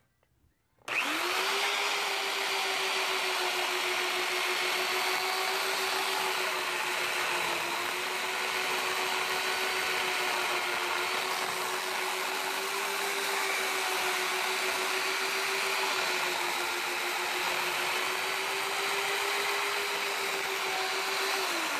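Corded electric chainsaw with a 14-inch bar starting about a second in and running at a steady pitch while it rips lengthwise through a cedar log, then shutting off near the end.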